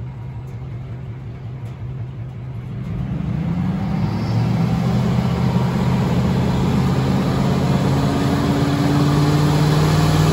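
Pickup truck engine going from idle to high revs about three seconds in and held there, with a rising hiss of a rear tire spinning on pavement. This is a one-wheel "peg leg" burnout, where only one rear wheel spins.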